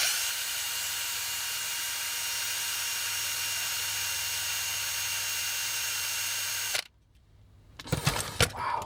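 Small electric drill with a 2.5 mm bit running steadily with a high whine as it drills dry into the metal rivet holding a toy's wheel. It cuts off abruptly about seven seconds in, followed by a few short knocks near the end.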